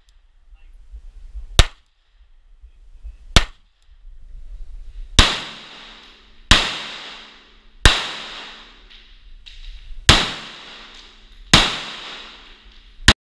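Glock 43 9mm subcompact pistol fired eight times, one to two seconds apart. The first two shots are short and dry. The rest ring on with long echoing tails, fired inside a dark enclosed stage.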